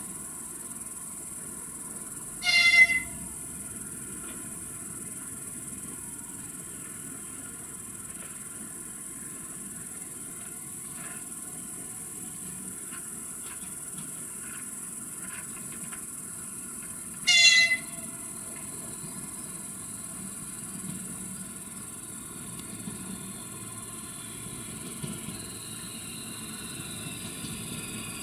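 ES2G Lastochka electric train sounding two short horn blasts about fifteen seconds apart as it approaches, over a steady high chirring of insects. Near the end a whine from the train comes in.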